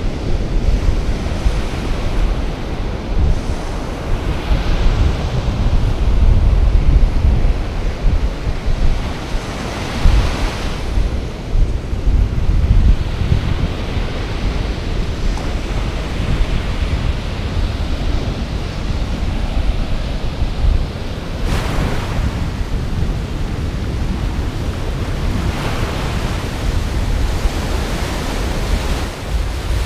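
Ocean surf breaking and washing up a sandy beach, swelling several times as waves come in, with heavy wind buffeting the microphone as a gusty low rumble.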